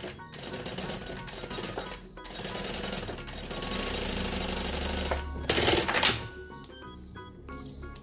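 Industrial lockstitch sewing machine running in quick stitching bursts, stopping briefly twice, to sew a short securing seam; about five and a half seconds in it stops with a brief loud clatter. Soft background music underneath.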